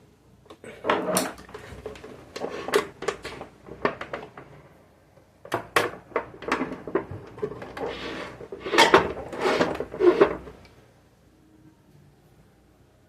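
Irregular metallic clattering and knocking from handling the parts and tools of a jammed Elgin sewing machine, in uneven bursts that stop about eleven seconds in.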